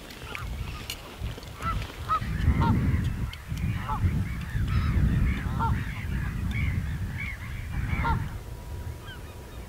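A flock of geese honking, many short calls about one or two a second, over a low rumbling background.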